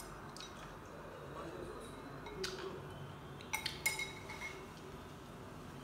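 Chopsticks clinking against a ceramic rice bowl. One sharp clink with a short ring comes about two and a half seconds in, then a quick run of three more about a second later.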